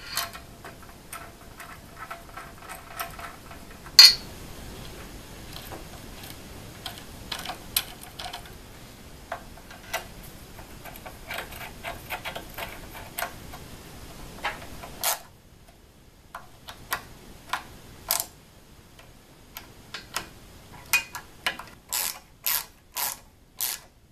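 Hex key turning in the socket-head cap screws of an aluminium CNC router carriage plate: a run of small metal clicks and ticks as the key is worked and reseated. There is one loud clack about four seconds in, and a string of five sharp clicks near the end.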